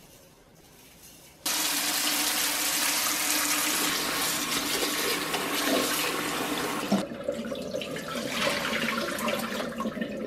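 Kitchen tap water running and splashing onto red chillies in a metal bowl as they are rinsed by hand. It starts suddenly about a second and a half in, and its sound changes about seven seconds in.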